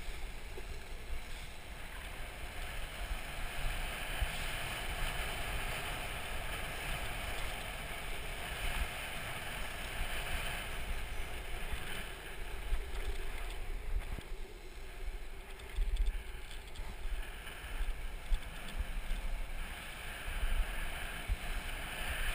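Wind buffeting the microphone in gusty low rumbles over a steady rushing hiss of urethane wheels rolling fast on asphalt during a downhill street luge or longboard run.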